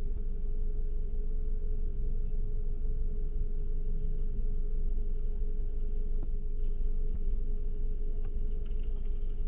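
A car on the move: steady low engine and road rumble with a constant mid-pitched hum over it.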